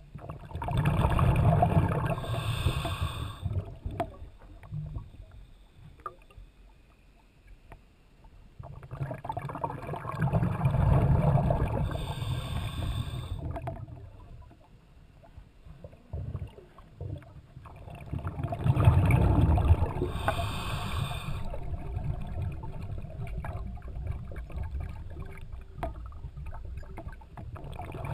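A scuba diver breathing underwater through a regulator: three long rushes of exhaled bubbles about nine seconds apart, each ending in a short hiss from the regulator, with quieter stretches between breaths and a fourth breath starting at the end.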